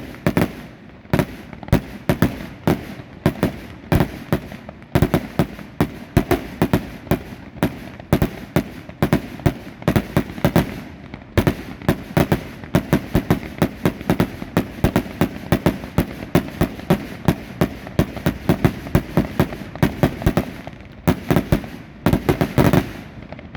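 Fireworks display: a dense barrage of aerial shell bursts, several sharp bangs a second, tailing off near the end.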